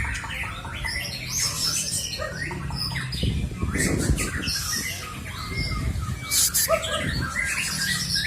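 Wild-caught white-rumped shama (murai hutan) giving a rapid series of short harsh calls and chirps.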